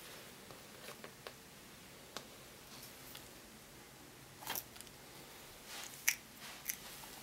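Leopard gecko biting and crunching a superworm: a few sharp, crisp crunches at about five to six seconds in, after some fainter clicks and a louder snap a little past halfway.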